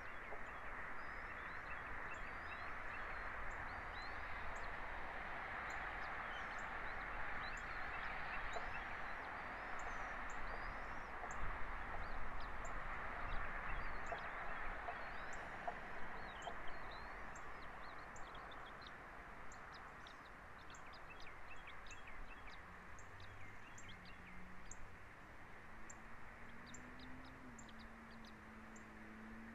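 Many short, high bird chirps and a few brief whistled glides over a steady outdoor hiss. A faint low hum comes in near the end.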